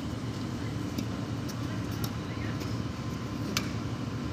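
Badminton racket strikes on a shuttlecock: a few light sharp clicks, the sharpest about three and a half seconds in, over a steady low background rumble.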